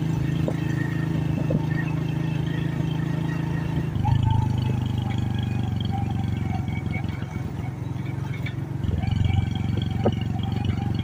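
Small motorcycle engine running steadily while riding along a dirt road, its pitch shifting about four seconds in and again near the nine-second mark as the throttle or gear changes.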